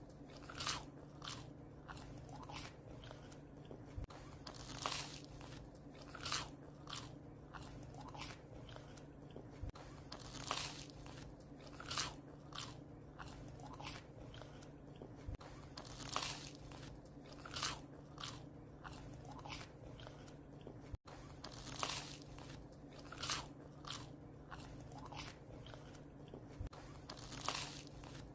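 A dog chewing and crunching bread: irregular crisp crunches several a second, with a louder bite every second or two. A steady low hum lies underneath.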